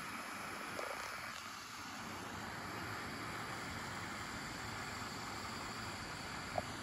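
Hot air rework station blowing a steady hiss of hot air onto a flux-coated eMMC chip, heating it to desolder it from the circuit board. One brief tick near the end.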